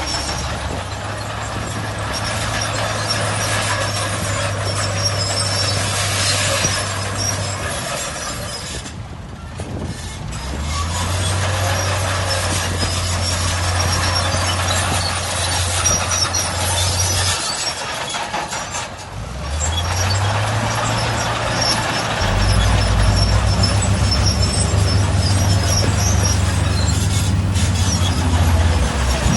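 Heavy diesel engines of earthmoving machinery and dump trucks working. The low engine note holds steady, drops away briefly about nine seconds in and again about two-thirds of the way through, then climbs back up each time.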